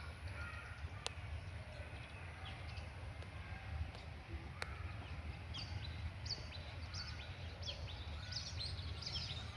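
Faint bird chirps, coming more often in the second half, over a low outdoor rumble, with two sharp clicks, one about a second in and one near the middle.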